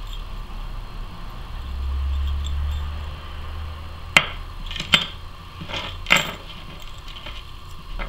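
A few sharp metallic clinks, about half a second to a second apart, as a spoon lure fitted with split rings, a swivel and a treble hook is handled, after a low rumble of handling noise lasting a second or so.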